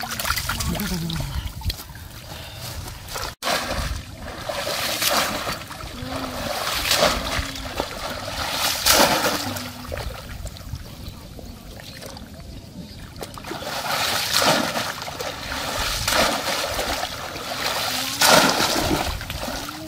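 Shallow pond water splashing and sloshing as people wade and thrash through it with their hands and a bamboo polo cone fish trap. It comes in irregular bursts, the loudest near the end.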